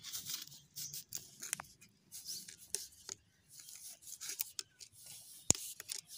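Plastic water pipe being twisted by hand into its heat-softened joint: irregular scrapes, rubbing and small clicks of the pipe, with one sharper click about five and a half seconds in.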